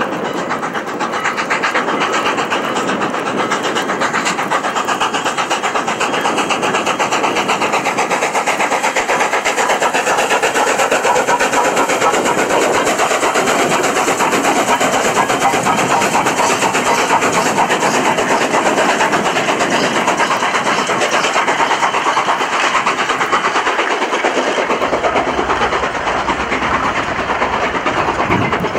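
Canadian National 2-6-0 steam locomotive No. 89 working hard past with a train, a fast, even beat of exhaust chuffs over steady steam hiss. A low rumble joins near the end as the passenger coaches roll by.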